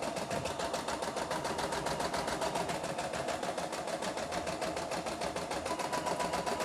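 CNY E960 computerised embroidery machine stitching a design at its 650 speed setting: a rapid, even rhythm of needle strokes over a steady motor hum.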